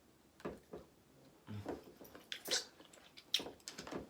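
Close-up eating sounds: chewing, wet lip smacks and clicks at an irregular pace, with a short low hum about one and a half seconds in.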